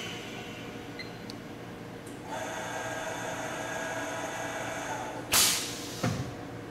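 Seam welder's torch-carriage drive motor running with a steady whine as the carriage travels along the seam, starting about two seconds in after the start button is pressed. The whine stops about five seconds in, followed by a short loud burst of noise and a weaker one just after.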